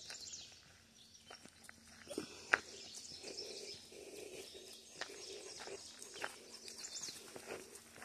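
Footsteps crunching irregularly on a gravel road, with birds chirping now and then and a faint steady low hum underneath.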